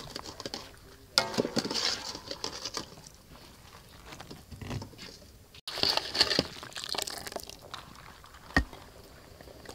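Drained, blanched mushrooms shaken out of a wire-mesh strainer onto a baking tray, pattering and rustling. A few seconds later a second burst of rustling comes as drained dried chilies are tipped from the strainer into a bowl.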